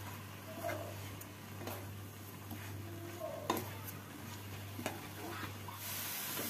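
Wooden spatula stirring grated coconut in milk in a non-stick pan, with soft scrapes and taps against the pan. About six seconds in, a steady sizzling hiss comes up as the mixture cooks.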